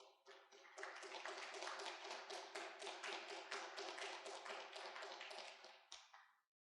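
Congregation clapping their hands in praise, a steady run of many claps with a faint steady low tone underneath, cutting off suddenly about six seconds in.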